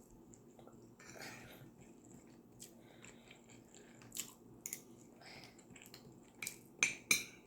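Eating sounds: chewing, with cutlery clinking and scraping on a plate in scattered short clicks. The two sharpest clinks come near the end.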